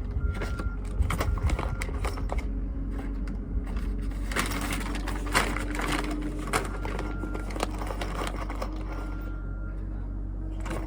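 An engine running steadily, with a scatter of sharp metal clanks and knocks that are heaviest about four to six seconds in. A short high beep repeats a few times near the start.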